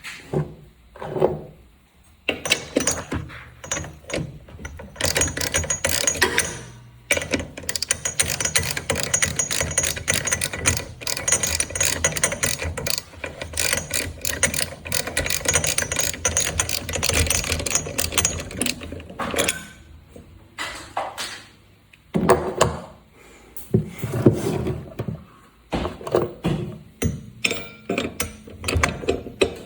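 Hand ratchet wrench clicking rapidly as brake rotor bolts are backed out, in one long run, then shorter bursts after pauses.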